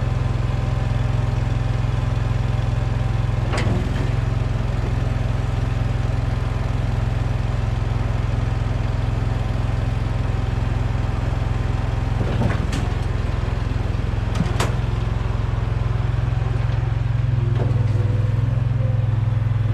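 Case 1816 skid steer engine running steadily, a loud even low hum, with a few sharp metallic knocks from the machine at about 4 seconds and twice more near the middle.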